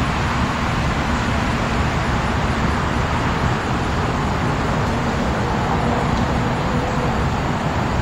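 Steady outdoor ambient noise: a constant low rumble with hiss that does not change.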